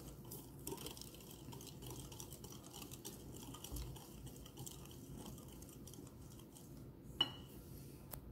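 Wire whisk stirring flour into batter in a glass bowl: a faint, quick, scratchy brushing with light ticks of the wires against the glass. A single sharper clink about seven seconds in.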